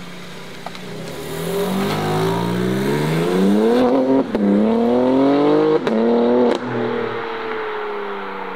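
Modified BMW accelerating hard, its engine and exhaust rising in pitch through the gears. Two quick upshifts each cut the note briefly with a sharp crack. About two-thirds through it lifts off with another crack, and the note drops and fades as the car pulls away.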